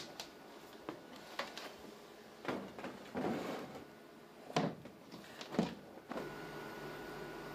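Scattered knocks, clicks and rustles of equipment being handled and moved about. From about six seconds in, a steady hum with a faint high whine takes over.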